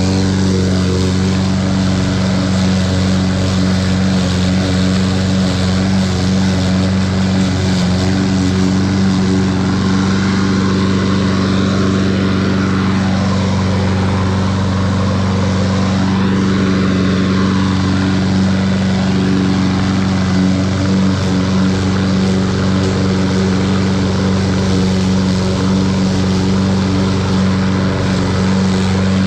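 Toro 21-inch walk-behind lawn mower's engine running steadily under load while mowing grass with a new mulching blade.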